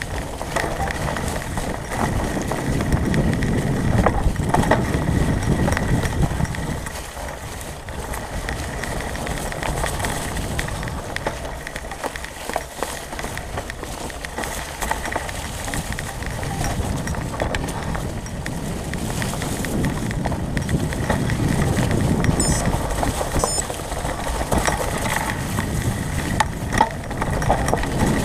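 Fat-tire mountain bike rolling over dry fallen leaves on a dirt trail: steady tire noise and leaf crunch, with many small rattles and knocks from the bike over bumps.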